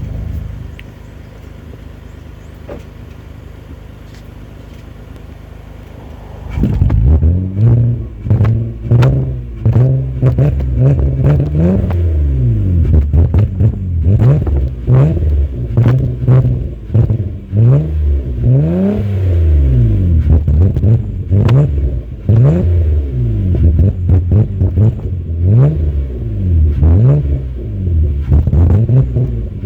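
Nissan car's engine through a custom exhaust, idling steadily, then from about six seconds in revved again and again, the pitch rising and falling with each blip. Sharp pops from the exhaust come between the revs: backfire on the overrun.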